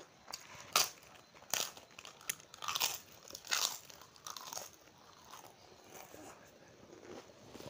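Close-up eating sounds: a crisp fried papad crunched between the teeth, several sharp crunches in the first four seconds, then softer chewing.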